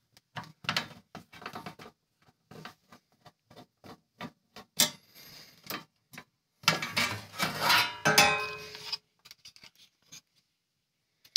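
Screwdriver turning out screws and a floppy drive being handled in a sheet-metal drive bracket: a run of small metallic clicks and ticks, with louder scraping in the middle and a brief metal ring about eight seconds in as the drive is worked out of the bracket.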